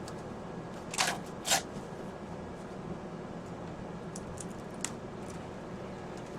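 Two short rustles of a cling wrap roll and its box being handled, about half a second apart, then a few faint clicks, over a steady room hum.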